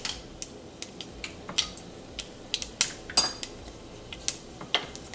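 Mustard and fenugreek seeds spluttering in hot coconut oil in a pan: irregular sharp pops and clicks, about a dozen, the loudest a little past halfway. This is the tempering stage, the popping a sign that the oil is hot enough.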